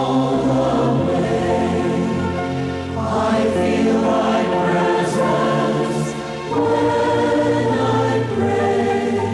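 A group of voices singing a slow devotional hymn together, with sustained accompaniment underneath; the harmony shifts to a new chord every few seconds.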